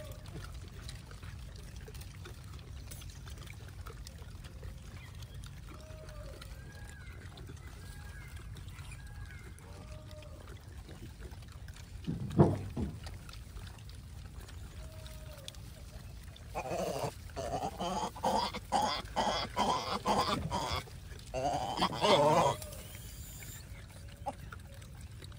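Gray langurs crowding around a feeding hand and calling: one short loud call about halfway through, then about six seconds of loud, high, harsh calls in several bursts.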